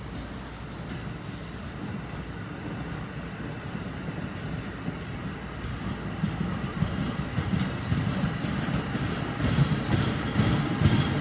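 NJ Transit bi-level passenger coaches rolling past on the rails, the rumble growing steadily louder as the train goes by. A thin, high-pitched wheel squeal rings out for a couple of seconds about six seconds in, and fainter squeals follow near the end.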